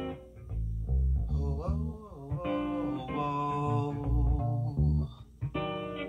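Recorded music played back over hi-fi loudspeakers driven by a Western Electric 300B tube amplifier: plucked guitar notes over a bass line.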